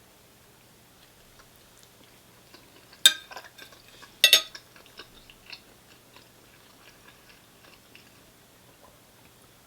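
Close-up eating sounds: soft chewing and mouth noises, broken about three and four seconds in by two sharp clicks of cutlery against the meal's container.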